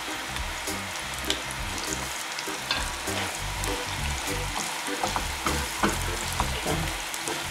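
Carrot sticks sizzling in hot oil in a frying pan, stirred with a plastic slotted spatula that clicks and scrapes against the pan.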